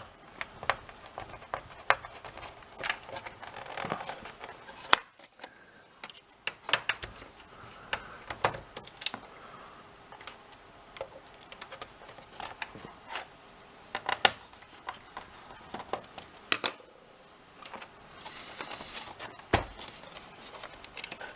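Irregular small clicks and taps of a Torx screwdriver and plastic and metal parts being handled while a PS4's disc drive is unscrewed and unplugged, with a few sharper knocks among them.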